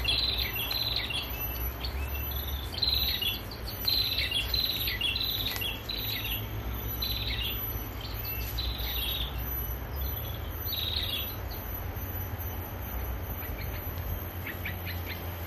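A bird's short chirping calls, each sweeping down in pitch, repeated in quick runs for most of the first eleven seconds. After a pause, a new run of faster chirps starts near the end. A steady low traffic rumble runs underneath.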